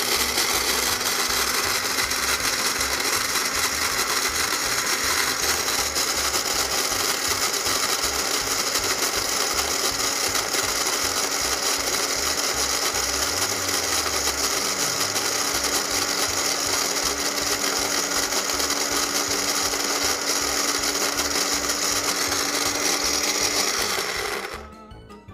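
Countertop kitchen blender running steadily at one speed with a steady hum, a gritty, sandy mixture rattling around its plastic jar; it switches off near the end.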